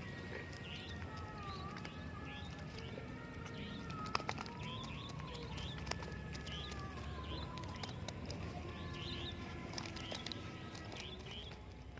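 Small birds chirping repeatedly, a short high chirp about twice a second, over a steady low rumble.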